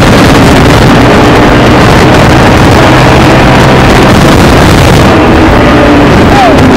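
ATV engine running at speed, buried under heavy wind noise on the microphone, loud and steady.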